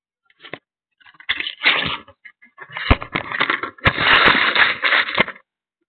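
Rustling and crackling handling noise of a concealed camera being moved against clothing, in irregular stretches with a couple of sharp clicks.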